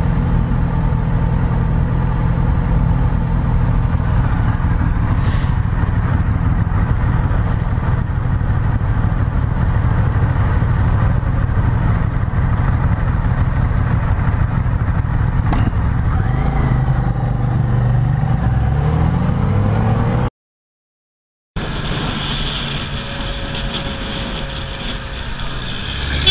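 Motorcycle engine running steadily under way, its pitch sliding through a gear change about two-thirds of the way in. The sound cuts out completely for about a second, then the engine carries on at a different, steadier tone.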